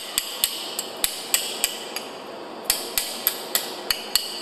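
Hand hammer striking a steel piston plate to chip off hardened concrete: sharp metallic strikes about three a second, each with a brief ring, with a short pause about two seconds in.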